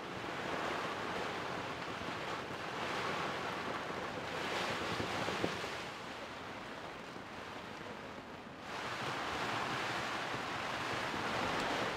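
Heavy rain and strong wind over a sailboat's deck: a steady rushing hiss that eases off a little midway and grows louder again about three-quarters through.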